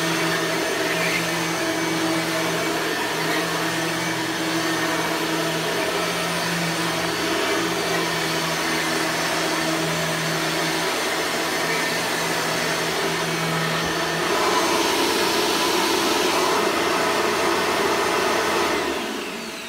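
1998 Bissell soft-bag upright vacuum with a 9-amp motor running steadily. Its sound shifts and gets a little louder about 14 seconds in, then the motor is switched off and winds down at the very end.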